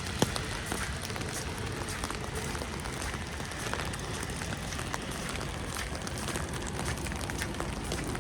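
Steady patter of falling wet snow, with many small ticks and drips and one sharp click just after the start.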